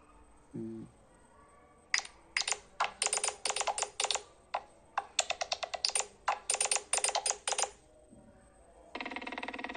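Nothing Phone ringtone: a quick rhythmic run of short, sharp clicking tones from about two seconds in to about eight, then a short buzzing tone near the end.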